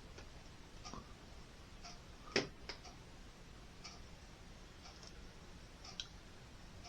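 A clock ticking faintly and evenly, about once a second. A sharper, louder click comes about two and a half seconds in, and a smaller one near the end.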